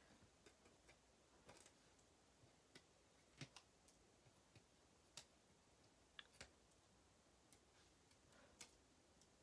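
Near silence with faint, scattered ticks and clicks of paper being handled: a card panel backed with foam dimensionals being picked up and positioned.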